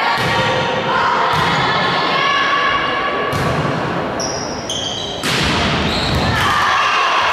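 A volleyball being struck in a rally: a serve, then several more sharp hits a second or two apart, echoing around a sports hall, over spectators' shouting voices.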